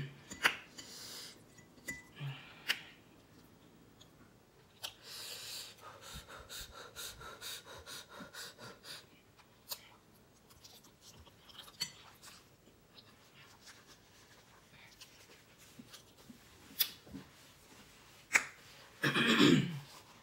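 Person eating spicy instant ramen noodles with a fork: scattered fork clicks, soft chewing and slurping, and breathing that the spice has made hard. Near the end there is a loud nose blow into a tissue.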